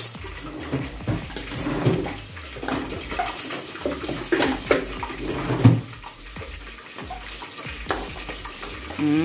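A metal spoon stirring chopped tomatoes, onions and greens in a steel cooking pot, with scattered clinks and scrapes against the pot, over a steady hiss.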